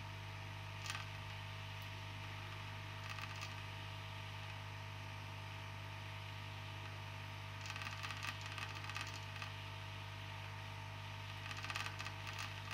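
Aoyue INT852A+ hot air rework station running with a steady hum while heating a chip on a circuit board. Short spells of light crackling and ticking come about a second in, around three seconds, and twice more in the second half.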